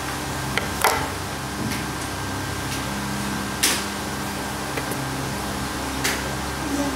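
Steady room hum and hiss, with four or five short sharp clicks scattered through.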